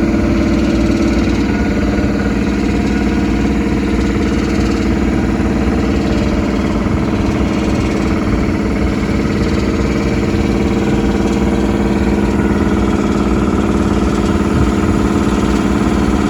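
An engine running at a steady idle, a constant low hum and rumble that does not change.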